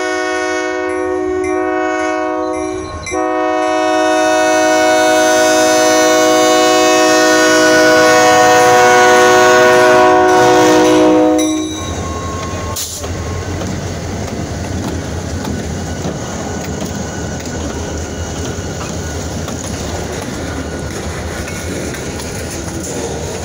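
Diesel locomotive's air horn sounding a long blast, broken once briefly about three seconds in, its pitch sliding down as the locomotive passes before it cuts off about halfway through. Then the train rolls past with a steady rumble of wheels on rail.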